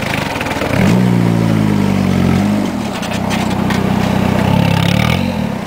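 Peugeot 306 1.9 turbodiesel field car revving hard. The revs climb about a second in, drop back briefly, then rise again near the end, as the car struggles for grip in wet mud.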